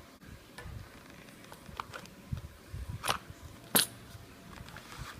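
Light clicks and taps from handling a small homemade cardboard vending machine, with two sharper clicks about three and nearly four seconds in.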